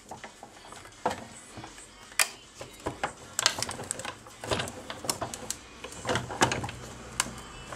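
Big Shot die-cutting machine being hand-cranked, its rollers pressing a sandwich of cutting pads, steel-rule die and cardstock through: a run of irregular clicks and knocks.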